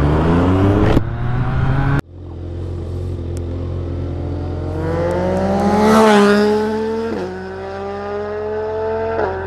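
Yamaha MT-09's inline-three with an Akrapovic exhaust, accelerating hard past the microphone in a drive-by. Engine pitch climbs to its loudest about six seconds in and dips as the bike goes by, then drops in steps at two quick upshifts, over a steady low idle hum. Before that, a rising rev cuts off abruptly about two seconds in.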